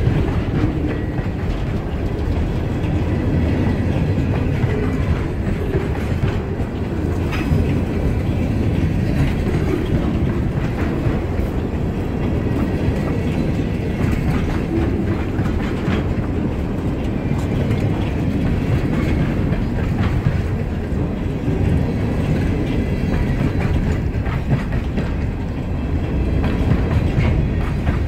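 Freight train of covered hopper cars rolling past, a steady low rumble of steel wheels on rail with occasional clicks and clacks as wheels cross rail joints.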